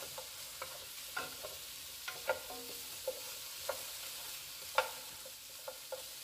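Chopped potatoes, carrots and zucchini sizzling softly in oil while a wooden spoon stirs them in a pot, with about a dozen irregular light knocks and clacks of the spoon against the pot, the loudest about five seconds in.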